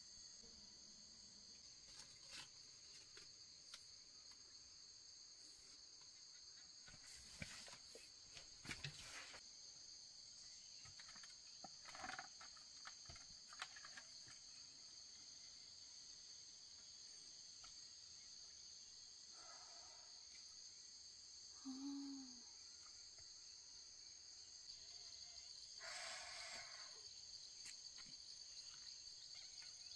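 Faint, steady high-pitched insect drone holding two constant pitches, with a few scattered faint clicks and knocks.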